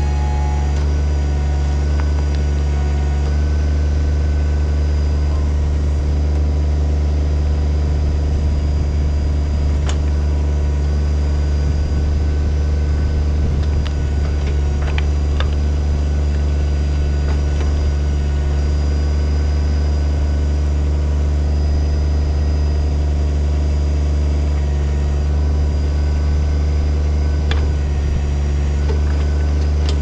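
Kubota BX25 subcompact tractor's three-cylinder diesel engine running steadily while its backhoe digs, with a few faint ticks.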